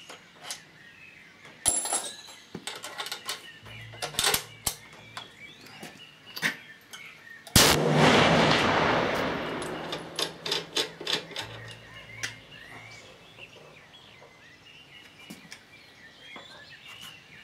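A single shot from a .338 Lapua Magnum Remington 700P bolt-action rifle fitted with a three-port muzzle brake, about seven and a half seconds in, with a long echo that fades over about three seconds. Before it come a few sharp clicks and knocks of the rifle being handled.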